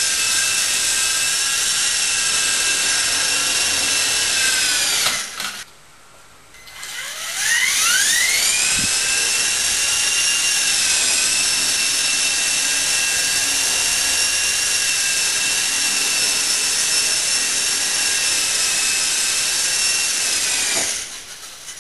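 Walkera Dragonfly 4 RC helicopter's electric motor and rotors whining at a steady high pitch. The whine winds down about five seconds in, stops briefly, then spools back up for a hover and holds steady. It winds down again near the end, with a single light tap about nine seconds in.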